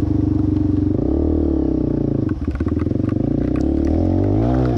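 Yamaha TTR 230's single-cylinder four-stroke engine running under throttle on a dirt trail: it revs up about a second in, eases off briefly past the two-second mark, and climbs again near the end, with scattered clicks and clatter in the middle.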